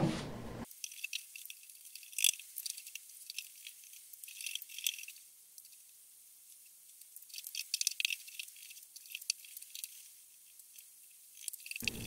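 Paintbrush strokes laying black paint onto the dresser's wooden side: thin, scratchy swishes in three short bunches with pauses between, all hiss and no low end.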